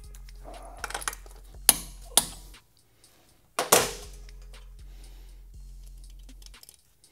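Sharp clicks and taps of small hardware being handled as a cotter pin is fitted through a motorcycle's rear axle nut, three louder clicks in the first four seconds, the third the loudest. Soft background music with low bass notes plays underneath.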